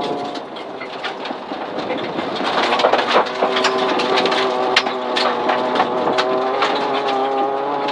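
Rally-prepared 2004 Mitsubishi Lancer's engine heard from inside the cabin, pulling hard with its pitch climbing steadily from about three seconds in. Loose gravel crunches under the tyres and pings against the underbody throughout.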